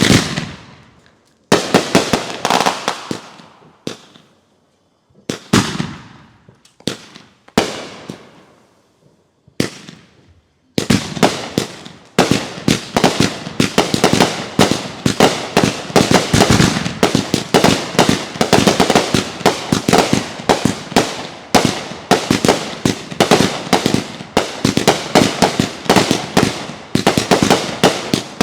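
Fireworks going off: several separate sharp bursts, each fading away in a crackling tail, then from about eleven seconds in a rapid, nonstop barrage of bangs.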